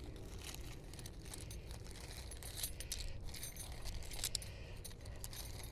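Metal tent pegs clinking and jingling together as they are handled, a scattered run of light metallic clicks.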